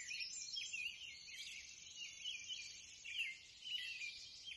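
Faint birdsong: a scatter of short, high chirps and whistles from wild birds.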